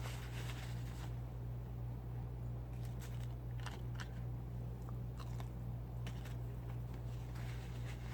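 Close-up biting and chewing of a crispy fried chicken tender: scattered short crunches, a few at a time, with quieter chewing between, over a steady low electrical hum.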